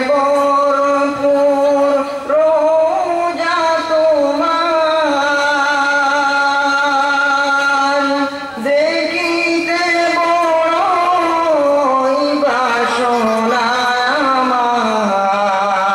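A male voice singing a Bengali Islamic gojol, holding long notes with small ornamental turns, in phrases separated by a few short breaths.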